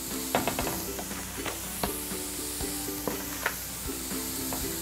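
Ground-lamb slider patties sizzling on a hot griddle, with scattered sharp crackles and pops. Background music plays underneath.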